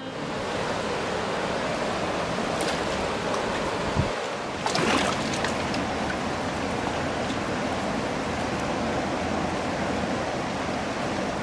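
Kern River, running high, rushing steadily past granite boulders along the bank. A brief thump comes about four seconds in.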